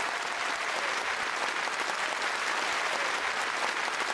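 Studio audience applauding steadily after a song-and-dance number.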